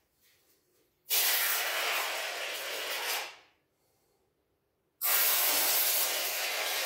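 Expanding polyurethane foam hissing out of a gun-type foam applicator in two bursts: one of about two seconds starting about a second in, then another starting near the end.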